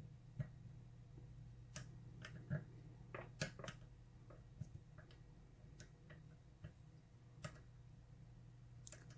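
Faint, irregular small clicks and ticks of a lock pick and tension wrench working the pins of a pin-tumbler lock held in a vise.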